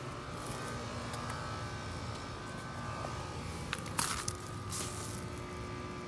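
American Standard heat pump outdoor unit running: a steady hum with several steady tones under it. A short knock about four seconds in.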